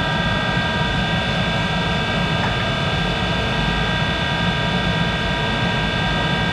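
1951 Monarch 10EE lathe running steadily with no cut being made: an even mechanical whine of several tones over a constant hum.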